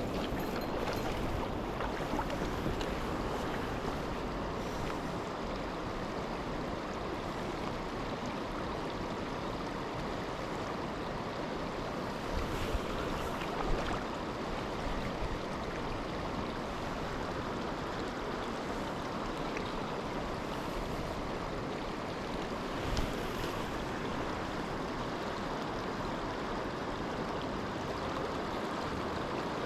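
A mountain river's current rushing steadily over rocks, with a couple of faint ticks about halfway through.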